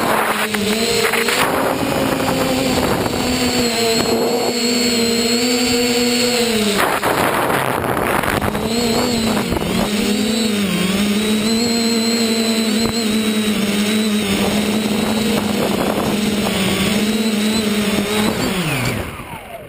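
Electric motor and propeller of a radio-controlled FPV aircraft, buzzing with a steady whine whose pitch rises and falls with the throttle. Near the end it winds down in a falling glide as the motor is cut.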